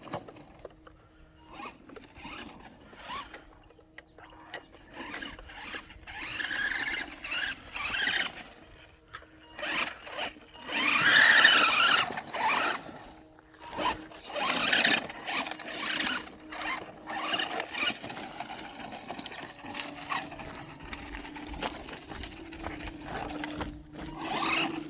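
Maverick Phantom XT radio-controlled car driving off-road, its motor whining up and down in uneven bursts of throttle along with rough scrabbling noise from the tyres. The loudest burst comes about halfway through.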